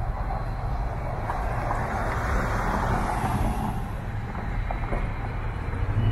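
A car moving off and driving slowly along a city street: a steady low rumble, with a swell of road noise that builds to its loudest around the middle and then eases.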